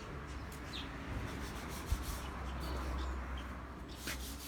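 Steady hand sanding on the truck's body panels as they are prepped for primer, with a few faint high chirps over it.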